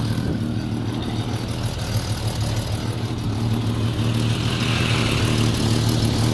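Jeep Cherokee XJ's straight-six engine running steadily at idle through a newly fitted Banks Revolver header, shortly after its first start.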